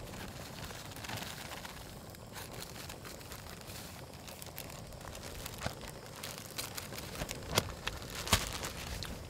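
Things being handled at close range: a soft crinkling and rustling, then a run of sharp clicks and knocks over the second half, two of them louder near the end.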